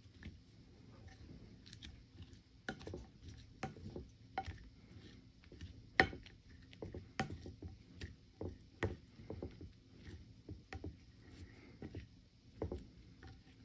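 Shredded dried squid being tossed in gochujang sauce on a plate with a fork and hands: faint, irregular wet squishes with light sharp clicks, one or two a second.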